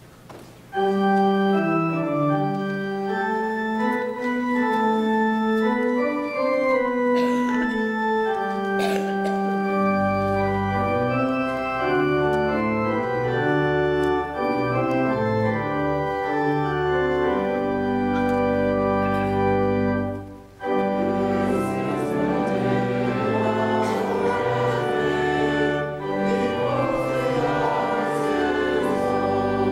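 Church organ playing held chords and melody, starting about a second in; deep pedal bass notes join about ten seconds in, and the music briefly pauses around two-thirds of the way through.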